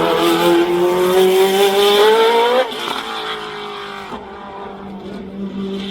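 A performance car's engine accelerating hard, its note rising steadily for about two and a half seconds. The pitch then drops suddenly as it lifts off or changes gear, and the sound runs on quieter.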